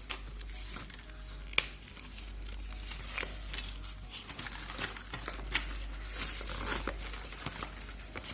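Crinkling and rustling as a Sony LCS-U11 soft camcorder carrying case and its packaging are handled, with scattered small clicks and one sharper knock about one and a half seconds in, over a low steady hum.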